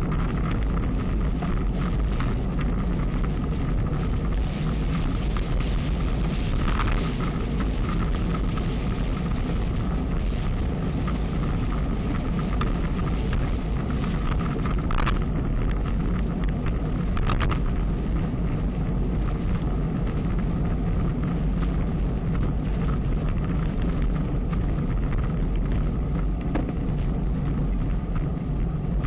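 Steady wind rush over an action camera's microphone while riding at speed, over road noise, with a few brief clicks.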